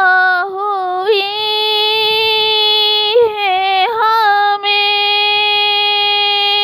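A high solo voice singing a naat without accompaniment, drawing out the final vowel of the line in long held notes with small ornamental turns and brief breaks between them.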